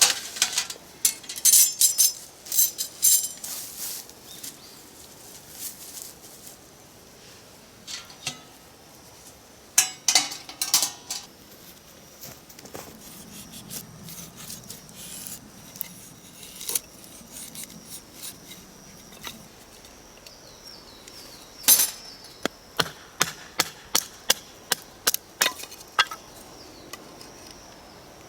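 Irregular knocks and clinks of hard objects being handled and struck, in clusters with pauses between, with faint high falling chirps in the background near the end.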